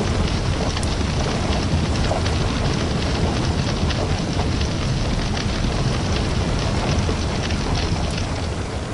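Steady heavy rain, an even dense hiss with a deep rumble underneath.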